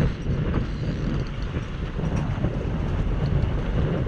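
Boat motor running steadily at trolling speed, a low rumble mixed with wind and water noise on the microphone.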